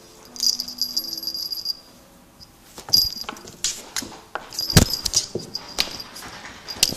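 A cat teaser wand toy shaken in bursts, rattling with a high bell-like ringing, the longest burst early on and shorter ones later. A heavy thump comes a little under five seconds in.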